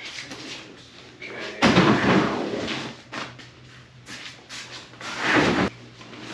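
Handling and packing noises: two longer rustling, scraping stretches, one about a second and a half in and another near five seconds that cuts off sharply, with lighter knocks between.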